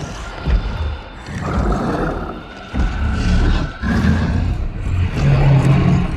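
Skar King, the giant ape monster's film sound effect: a run of loud roars and growls in several surges with a deep rumbling low end.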